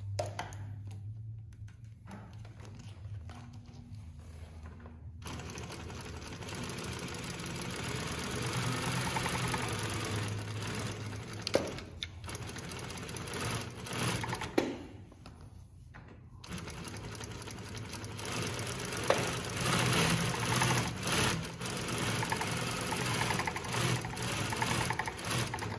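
Consew industrial walking-foot lockstitch sewing machine stitching through a thick, layered strap. A low steady hum comes first, then the machine sews in three runs, with short stops about 12 and 15 seconds in, each marked by a sharp click.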